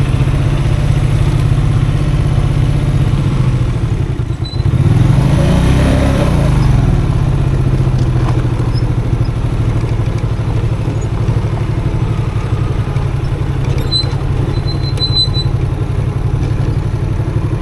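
Custom motorcycle engine running steadily at low speed, briefly easing off and then revving up about five seconds in before settling back to a steady run.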